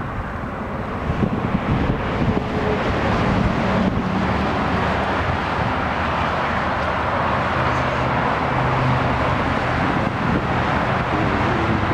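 Steady road traffic noise from passing vehicles, with wind buffeting the microphone and a faint engine hum now and then.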